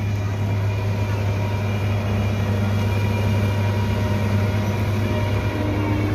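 Diesel engine of a combine harvester running steadily as the machine drives up, with a deep even hum.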